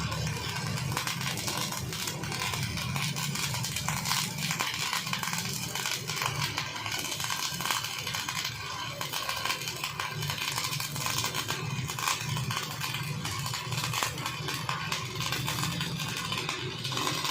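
Stick (SMAW) welding arc crackling and sputtering steadily while a root pass is run, with a steady low hum underneath.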